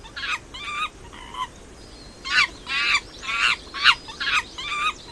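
Monkey giving a series of short, high-pitched calls, about two a second, with a short pause near the middle.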